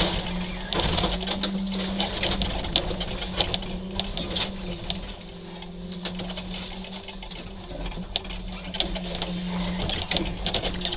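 Hydraulic scrap-handling crane running, its pump and engine humming steadily from inside the cab, with many sharp metallic clicks and rattles as the grapple works a crushed car body. The hum dips a little around the middle, while the crane slews, and swells again near the end.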